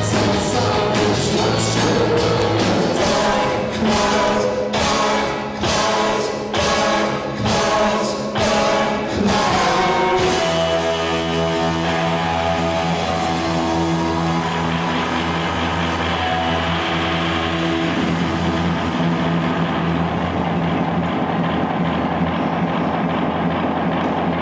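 Live rock band playing. A run of loud hits, each cut short, comes about once a second until about ten seconds in. Then a held chord drones on steadily to the end.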